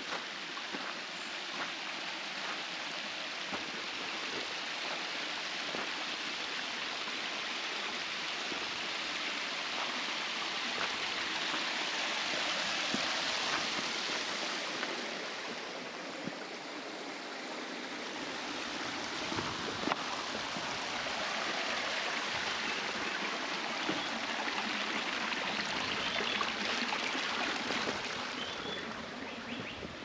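Mountain stream flowing over rocks: a steady noise of running water. It grows louder toward the middle, eases off briefly, then swells again.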